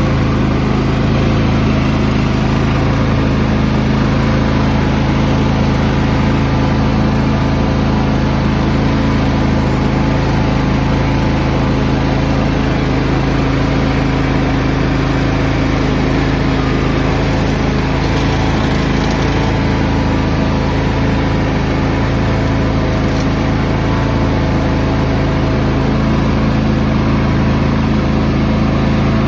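John Deere X330 lawn tractor engine running steadily at an even speed.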